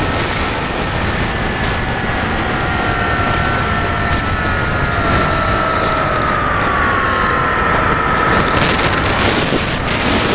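Wind rushing over a radio-controlled FPV model aircraft's onboard camera microphone, with the whine of its motor and propeller running underneath, the whine's pitch sliding slowly down.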